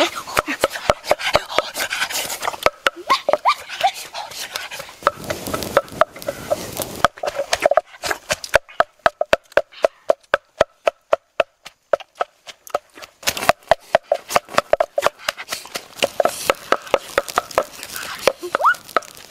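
Wooden pestle pounding in a wooden mortar: a steady run of knocks, about three a second.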